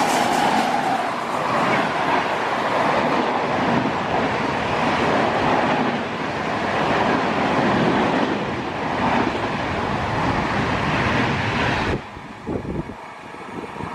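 Express train passing at speed: loud, steady rush of wheels on rail that drops off sharply about twelve seconds in.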